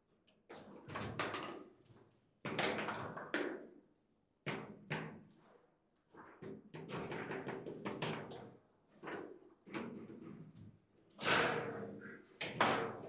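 Table football in play: the ball and the players' figures striking, with rods clacking, in rapid irregular runs of sharp knocks separated by brief pauses. The loudest hits come near the end.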